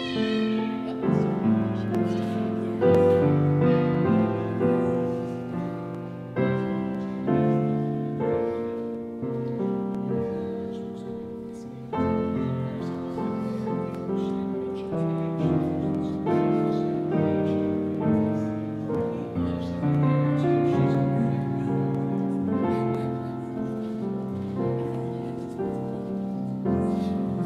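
Piano music playing, one note or chord after another without a break.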